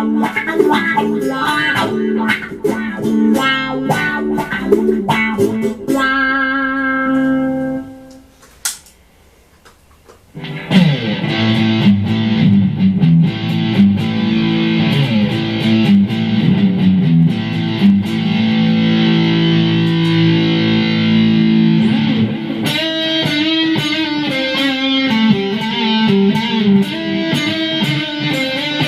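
Fender Telecaster electric guitar played through a Meteoro GS-100 amplifier with a Boss GT-8 effects unit. It plays quick picked notes, then a chord that rings and dies away about eight seconds in. After a short break come sustained chords and notes, with faster picking resuming near the end.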